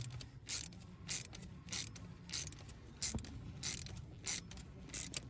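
Hand ratchet worked back and forth, undoing the small 7mm nuts that hold the glow plug wires: a short run of clicks on each back-swing, repeating evenly about every half second.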